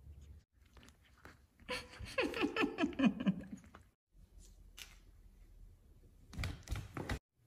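A voice whose pitch steps downward over about two seconds, followed later by a few short knocks and rustles.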